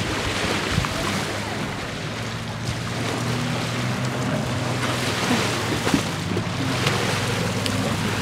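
Jet ski engine idling steadily, with a low hum that holds its pitch, over a steady hiss of wind and water.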